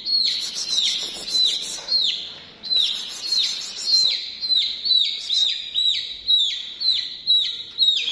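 A chick peeping loudly and without pause, about two shrill downward-falling peeps a second: the insistent distress calling of a chick held in a hand.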